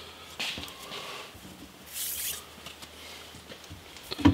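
Hands handling a stainless-steel fold-down table still covered in plastic protective film: light scratches and rubs, a brief rasp about two seconds in, and a sharp knock near the end.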